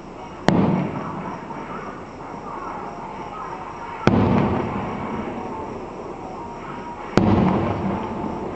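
Fireworks going off: three sharp booms a few seconds apart, each trailing off in a rumbling echo.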